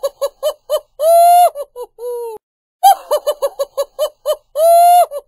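Looped laughing sound effect: a quick run of short high-pitched ha-ha notes, a long held note, then a lower drawn-out one. The whole pattern repeats about every three and a half seconds.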